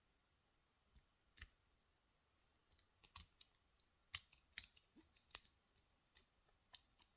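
Small sharp clicks and taps of metal tools and parts on a KIK lock cylinder being taken apart. They come singly at first, then in a quick irregular run of about a dozen through the second half.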